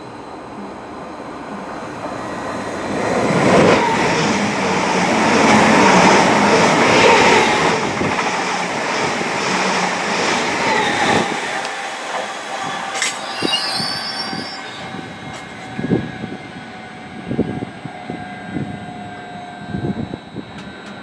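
Greater Anglia Stadler FLIRT electric multiple unit passing close along the platform: the rumble and hiss of its wheels on the rails builds over a couple of seconds, is loudest for about four seconds, then fades away. A few irregular thumps come near the end.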